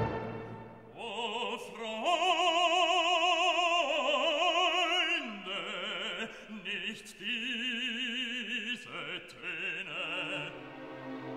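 Background music: an operatic voice singing held notes with a wide vibrato over classical accompaniment.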